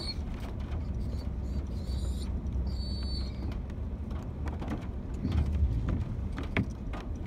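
Van rolling slowly over a rough dirt driveway, heard from inside the cab: a steady low rumble with creaks and knocks from the body and suspension, and brief high squeaks about two and three seconds in.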